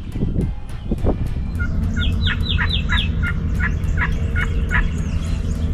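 A bird calling a rapid series of sharp, down-slurred notes, about three a second, for roughly three seconds, over a steady low rumble, with a few dull knocks at the start.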